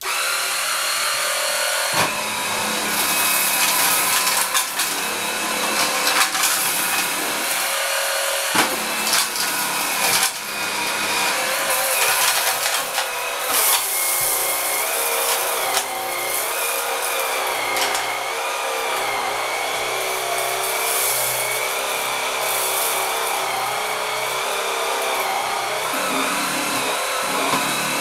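JML Swivel Sweeper G2 cordless four-brush sweeper switching on and running, its battery motor whining steadily as the brushes spin. Sharp clicks and rattles of rice and small nuts and bolts being swept up break through the whine, most often in the first half.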